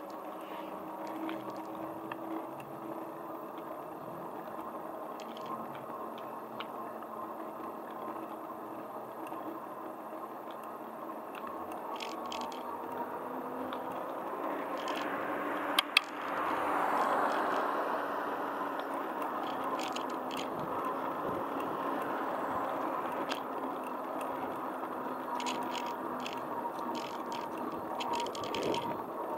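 Ride noise of a bicycle rolling on asphalt: a steady rolling hiss with light rattling and small clicks. Two sharp clicks come a little past halfway, after which the rolling noise grows louder.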